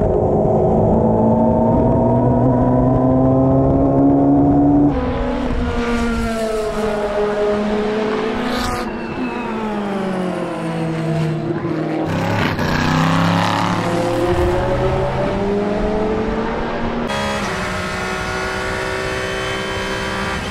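Racing car engines at high revs. First a prototype's engine heard onboard, its pitch slowly climbing as it pulls through the gears, cut off sharply about five seconds in. Then cars passing one after another with their pitch dropping as they go by, among them an Aston Martin Vantage GTE's V8, and near the end a steadier engine note.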